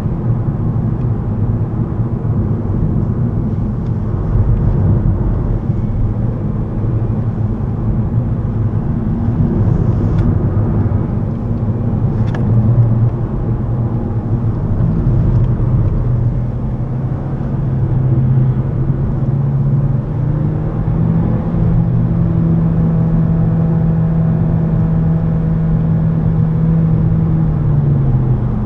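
VW Golf 7 1.5 TSI Evo's turbocharged four-cylinder petrol engine pulling under way, heard from inside the cabin over steady tyre and road rumble. The engine note climbs in pitch about two-thirds of the way through, holds steady, then drops away near the end, with a single brief click near the middle.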